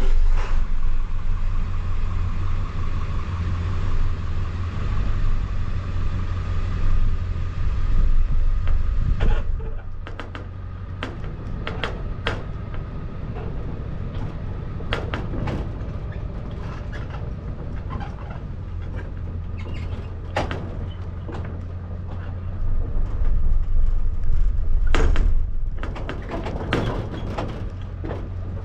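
A motor vehicle running as it is driven: a steady low engine rumble, louder at first, with a whine that stops about nine seconds in. Scattered rattles and knocks follow, and the rumble rises again near the end.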